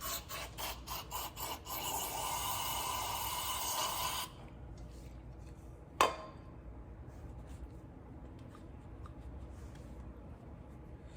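Hand work on a scooter's rear brake caliper parts: a quick series of rubbing strokes, then a steady scrape lasting about two seconds, and one sharp click about six seconds in.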